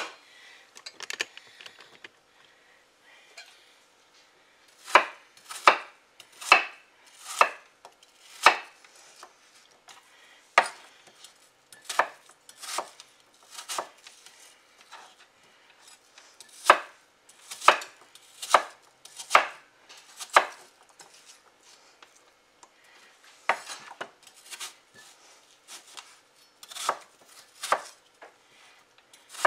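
Chef's knife cutting peeled Granny Smith apples into cubes, each cut ending in a sharp knock of the blade on a wooden cutting board. The chops come unevenly, singly and in short runs, starting a few seconds in and pausing briefly about two-thirds through.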